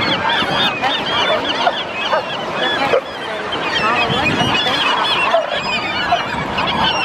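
A large flock of western gulls calling over one another, a dense chorus of overlapping squawks and cries.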